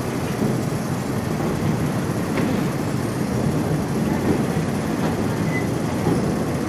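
Passenger train running along the track: a steady rumble with no breaks.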